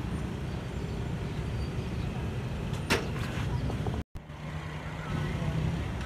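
Steady low rumble of a running vehicle engine, with one sharp click about three seconds in. The sound drops out for an instant about four seconds in.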